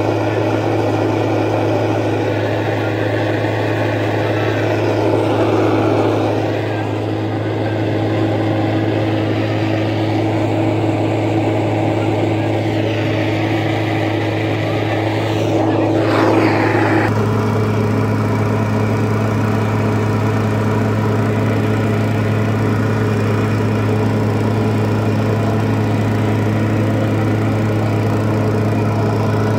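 Petrol-fuelled blower machine of a thermite-welding preheater running steadily, a continuous engine drone, as it heats the rail ends in the mould before the thermite is poured. Just past halfway its note drops slightly and stays lower.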